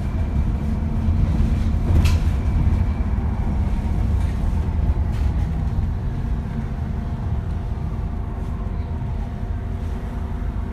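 Diesel bus engine running under way, a low rumble with its turbocharger whine as steady high tones above it. A sharp knock about two seconds in.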